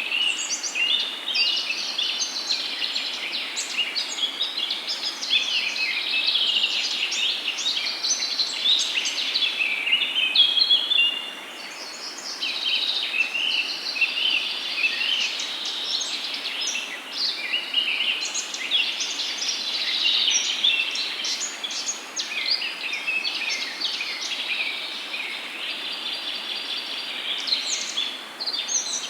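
Many small birds chirping and singing at once, a dense overlapping chorus of short high calls over a steady hiss. The chorus drops back a little about eleven seconds in, then carries on.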